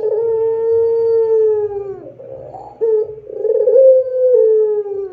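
Puter pelung, a Barbary (ringneck) dove, giving two long drawn-out coos. The first is held on one low note and drops away about two seconds in. After a short pause the second rises a little and then slides down.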